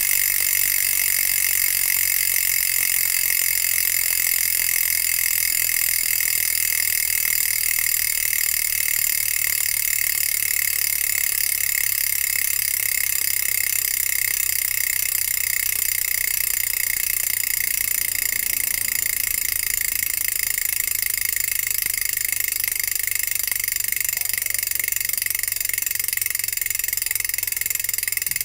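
Bicycle rear hub freewheeling, its freehub pawls clicking so fast they merge into a steady high buzz.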